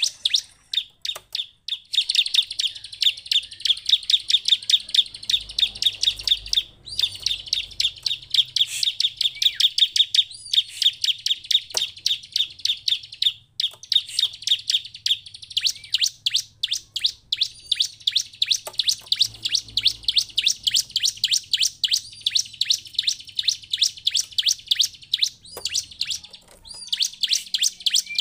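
Bar-winged prinia (ciblek) singing a long, rapid chattering run of sharp, high notes, about ten a second, broken by a few short pauses.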